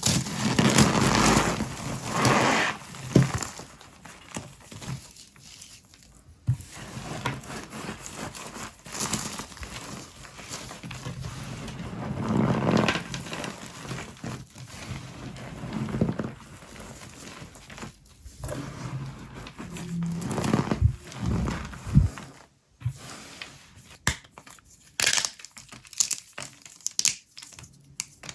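Brittle, puffed microwaved soap with starch being crushed and broken, giving irregular dry crackling and crunching with sharp snaps and several louder crushing swells.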